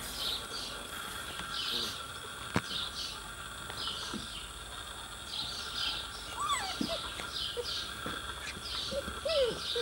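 Outdoor ambience of birds chirping again and again over a steady insect drone. A sharp click comes about two and a half seconds in, and two short falling squeaks come in the second half.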